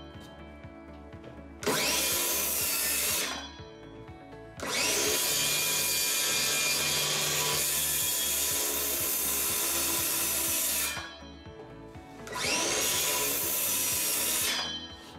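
Cordless circular saw making repeated cuts at a set depth across a pine newel post, kerfing out a notch to seat it over a joist. It makes three runs, a short one about two seconds in, a long one of about six seconds in the middle and a short one near the end, each whining up to speed and winding down.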